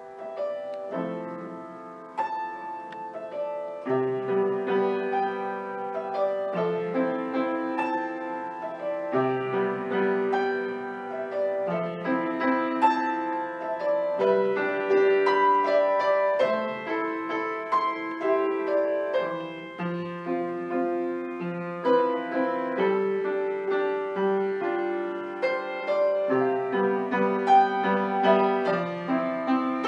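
Upright piano played solo, an impromptu: held chords in the low and middle range under a line of quicker notes. It starts soft and gets louder within the first few seconds.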